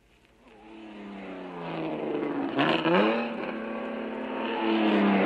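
Car engine fading in and accelerating hard, its pitch climbing, dropping once midway as at a gear change, then climbing again.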